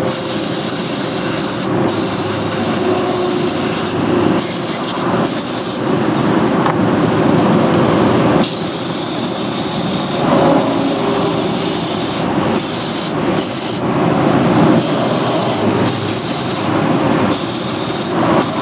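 Aerosol carb and choke cleaner sprayed in a series of hissing bursts, each lasting one to a few seconds with short breaks between them. Under it runs the steady rush of a large shop fan blowing across the microphone.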